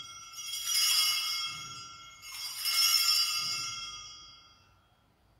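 Sanctus bells (a cluster of small altar bells) rung at the elevation of the chalice after the consecration. They are shaken twice about two seconds apart, each ring fading away, and the last one dies out about four to five seconds in.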